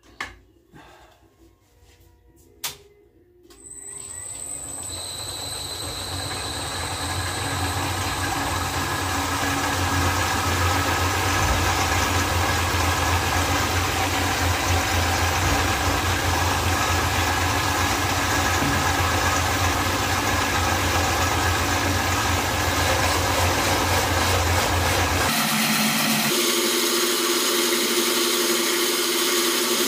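A few handling clicks, then the electric motor of a wood copy lathe starts and spins up over several seconds to a steady running hum, turning a wooden drumstick blank in its chuck. About 25 seconds in the sound changes abruptly to a different steady running mix as a coarse file is held against the spinning stick to rough it down.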